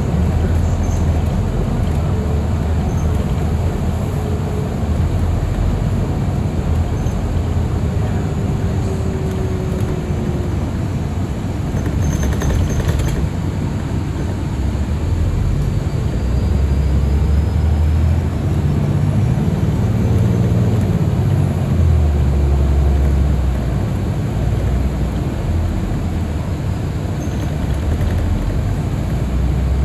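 City bus heard from inside the cabin while driving: a steady low engine and road rumble that swells several times, with a faint whine now and then and a brief rattle about twelve seconds in.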